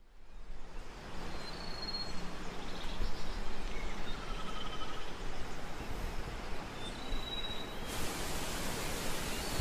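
Wind and surf noise on an open beach: a steady rushing hiss that fades in, with a few faint short high whistles and a brighter hiss about eight seconds in.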